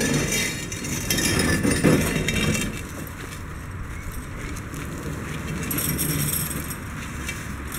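A heavy Mott flail mower dragged by hand over concrete and dirt, its steel body and loose flail knives scraping and rattling. The dragging is loudest over the first couple of seconds and picks up again about six seconds in.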